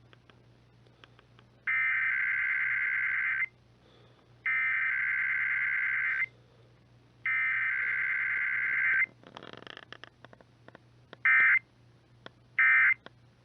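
Emergency Alert System SAME digital data bursts, a harsh two-tone warble: the alert header is sent three times, each burst nearly two seconds long with about a second between them. After a short crackle, three short end-of-message bursts follow, with no attention tone in between. This header-then-end pattern is typical of a required weekly test.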